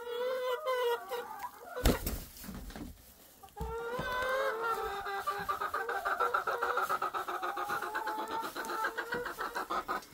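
Hens clucking close by, then one long, pulsing call from about three and a half seconds in. Two sharp knocks come about two and three and a half seconds in.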